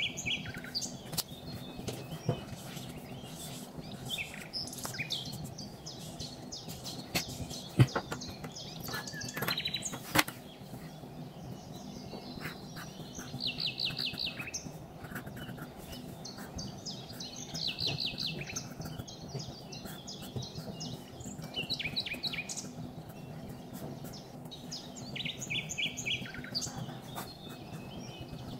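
Felt-tip marker writing on paper: short bursts of quick, high squeaks as each stroke is drawn, coming every few seconds, with a couple of sharp clicks. A steady low room hum runs underneath.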